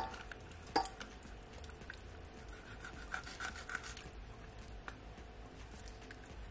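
Kitchen knife slicing into the side of a whole raw fish, a faint scraping of the blade through the skin, with a single sharp click about a second in.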